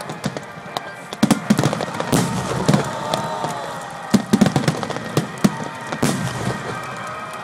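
Fireworks going off in a rapid string of sharp bangs and crackles, busiest from about a second in until near the end.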